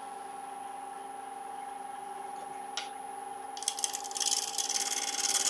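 Wood lathe running with a steady motor hum. A little over halfway in, a gouge starts cutting the spinning wet cherry blank: a loud, rough scraping hiss that goes on from there.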